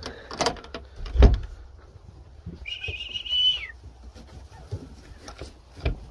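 A metal door bolt knocks as it is slid back about a second in, then one steady blast on a gundog recall whistle, about a second long, dropping in pitch as it ends. Another knock comes near the end.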